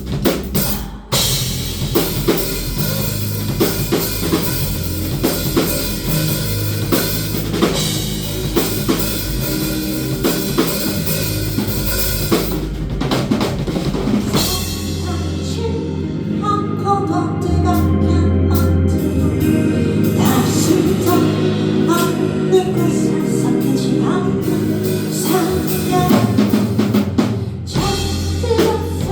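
Band music driven by a drum kit with snare, kick and cymbals over a bass line, with a brief drop about a second in. From about halfway the cymbals and snare thin out and a melodic line comes forward.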